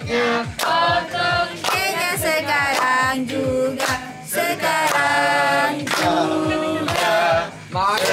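A group of people singing together without instruments, clapping their hands in a steady beat of about three to four claps a second. There is a short break in the singing near the end.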